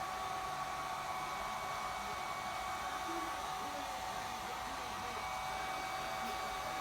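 Hand-held hair dryer running steadily: a constant rush of air with a steady motor whine.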